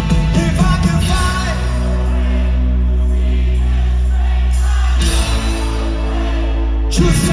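Live rock band playing in concert, with singing. About a second in the drums drop out, leaving a sustained chord; the chord changes about five seconds in, and the full band with drums comes back in near the end.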